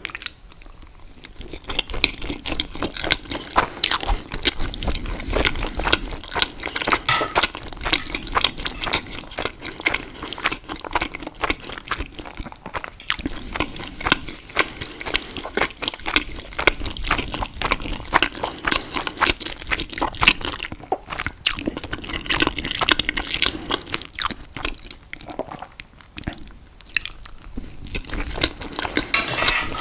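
Close-miked eating sounds: wet chewing, smacking and slurping of pasta and sausage, a dense run of small irregular clicks and squishes with a few brief pauses.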